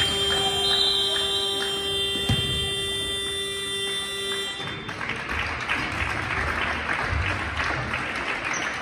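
Sports-hall scoreboard buzzer sounding one steady electronic tone for about five seconds, marking the end of play, with a single thud about two seconds in. After the buzzer stops, voices and clapping from players and spectators fill the hall.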